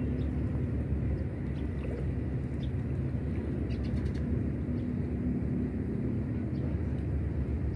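Steady low outdoor rumble, with faint bird calls over it.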